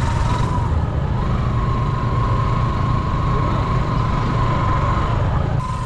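Motorcycle engine running at low speed as the bike crawls over a rocky dirt track, a steady pulsing low rumble. A thin, steady high whine sits above it and drops out briefly about a second in.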